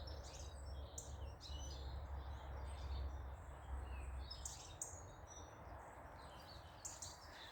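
Garden birds chirping, short scattered calls, over a low rumble that stops about four and a half seconds in.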